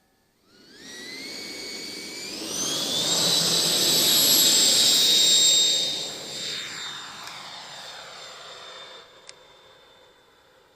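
145 mm electric ducted fan of a large RC sport jet whining as the throttle is opened in steps, the pitch climbing over about three seconds to a steady high whine at full power. It then fades away while holding its pitch.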